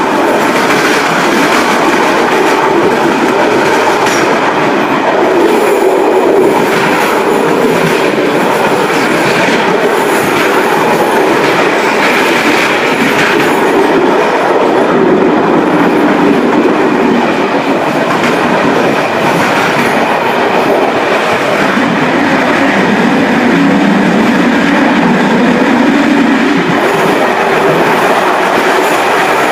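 Running noise of a Czech Railways rapid train's rear passenger coach, heard inside the coach: a steady, loud rumble and hiss of the wheels rolling on the rails as the train moves along.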